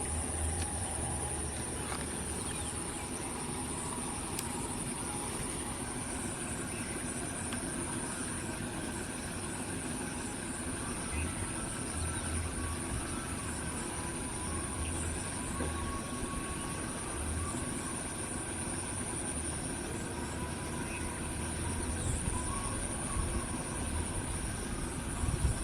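Steady outdoor background noise: a low rumble that rises and falls, under a continuous high, thin whine.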